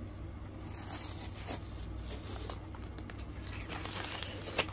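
Adhesive tear strip being ripped off a cardboard shipping box: a tearing of paper tape and card with small crackles, and one sharp click near the end. A low steady hum runs underneath.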